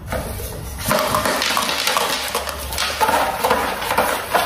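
Small plastic dice rattling and clattering inside a dice cup as it is slid and swirled around a tabletop to stack them, a steady busy clatter that stops suddenly at the end as the dice settle into a stack.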